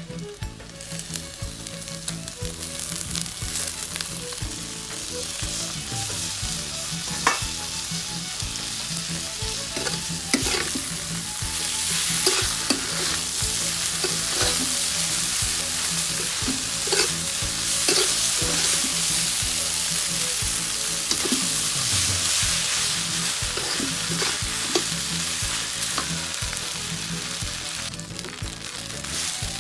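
Glass noodles, fried tempeh and potato being stir-fried in a wok: sizzling with a metal spatula scraping and knocking against the pan. The sizzle gets louder about twelve seconds in.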